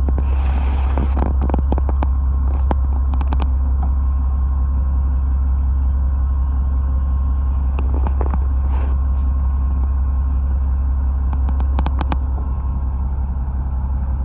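Fishing boat's engine running, a steady low drone, with scattered sharp clicks and knocks over it.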